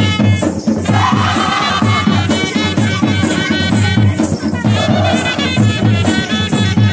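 Folk music with a steady drum beat and jingling percussion.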